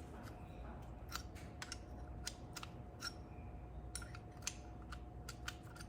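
Scattered light metallic clicks and taps, irregularly spaced, from small brake parts and hand tools being handled during a scooter rear brake pad change, over a faint steady hum.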